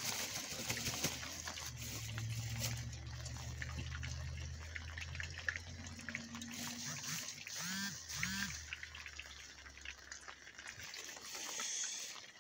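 Thin plastic bag crinkling and rustling as chicken pieces are tossed in flour, over a steady low hum and a hiss. Two short squeaks come about eight seconds in.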